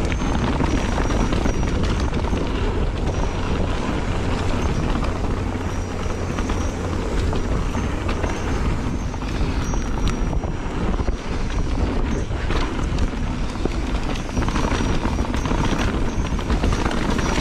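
Wind buffeting the action camera's microphone over the rolling tyres and rattling of a mountain bike riding fast down a dirt trail, a steady rush with a few sharp knocks.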